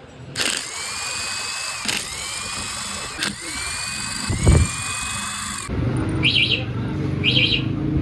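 A power drill whirring in several short runs, its pitch rising and levelling off after each start. Near the end it stops, and a low rumble takes over with short chirps about once a second.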